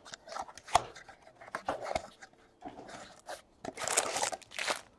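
Foil trading-card packs crinkling and rustling as they are handled and pulled out of a cardboard hobby box. The louder burst of crinkling comes near the end.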